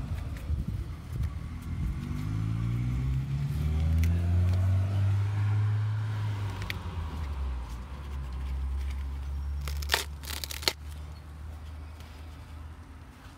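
A motor vehicle's engine accelerating, its pitch climbing over the first few seconds and then holding steady. A few sharp cracks sound about ten seconds in.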